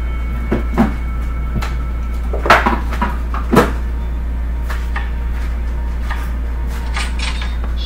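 Scattered knocks and clunks, about eight, the loudest about two and a half and three and a half seconds in, as a kitchen juicer is handled and set about on the counter, over a steady low hum.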